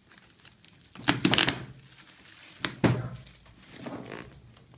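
Black plastic courier mailer being cut open with a utility knife and pulled apart: plastic rustling and tearing in a few loud bursts, about a second in and again near three seconds, with a sharp click between them.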